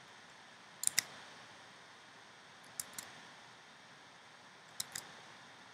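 Sharp clicks from working a computer, in three quick pairs about two seconds apart, over faint room hiss.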